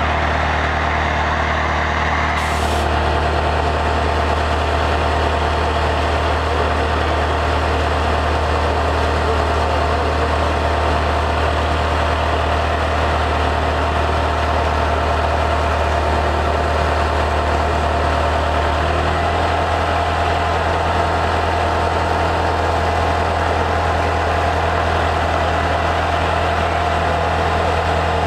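Dura-Patcher spray-injection pothole patcher running steadily, its engine and blower pushing air and aggregate out through the boom hose nozzle. The steady hum changes note slightly about two-thirds of the way through.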